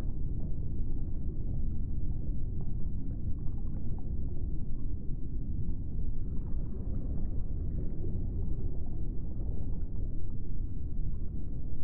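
A steady low rumble with faint scattered clicks and brief tones above it.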